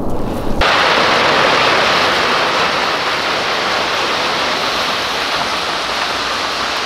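A steady rushing hiss of water that cuts in abruptly about half a second in.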